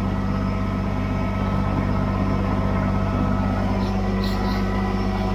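Kubota BX23S tractor's three-cylinder diesel engine idling steadily.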